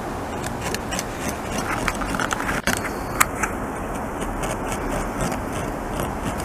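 A beaver gnawing a tree trunk: irregular crisp crunches and scrapes of its incisors biting into the wood, several a second, over a steady low background rumble.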